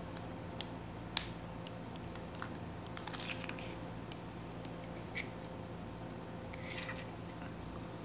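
A few light, sharp metallic clicks and taps as a Roxon Spark multitool is handled unfolded and measured for length, over a steady low hum.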